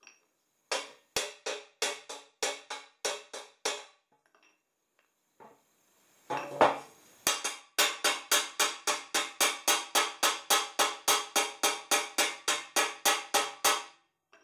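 Hammer blows on the end of a metal exhaust pipe, each ringing with a short metallic note, as the pipe mouth is knocked round. A first run of about eight blows and a brief scrape are followed by a fast, even run of about three to four blows a second.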